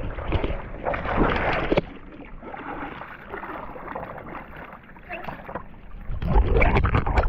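Paddle strokes on a stand-up paddleboard: the blade splashing through choppy sea water and water slapping against the board. The splashing is loud for the first couple of seconds, drops to quieter lapping, and grows loud again near the end.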